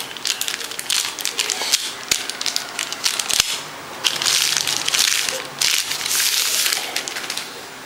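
Packaging being handled: crinkling and rustling with many small clicks and knocks, and two longer stretches of rustling about four and six seconds in.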